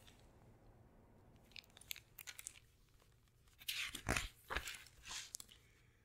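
Faint handling of a hardcover picture book as it is opened: scattered paper crinkles and page rustles, with a soft thump about four seconds in.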